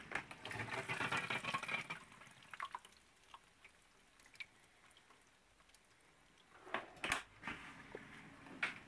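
Asko 770 dishwasher on a rinse cycle: water splashing loudly inside for about two seconds, then the machine stops and only a few drips are heard. About 7 s in the door is shut with clunks and a latch click, and the low running hum of the machine starts again.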